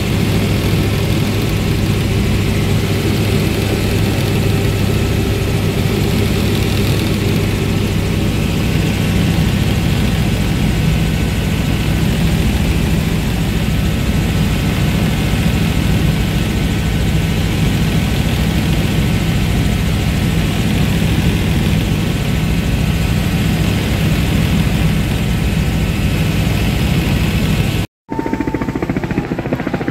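Steady drone of a helicopter in flight, heard from inside the cabin: engine and rotor running evenly at cruise, with a constant low hum under a rushing noise. Near the end it cuts off abruptly and gives way to a quieter sound.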